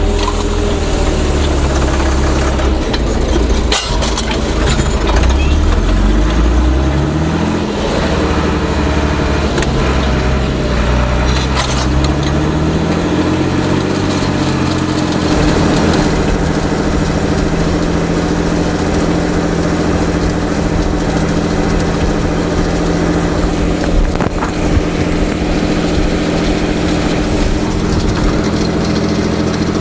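Fendt Favorit 611 LSA Turbomatik tractor's six-cylinder diesel engine running while ploughing. Its pitch drops in the first second, climbs in steps over the middle of the stretch, then holds steady.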